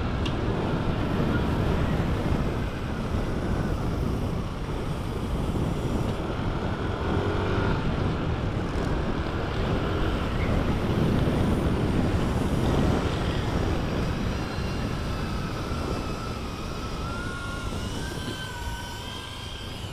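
Motorcycle running at riding speed, with wind rushing over the microphone as a steady noise, and a faint thin whine that rises slightly near the end.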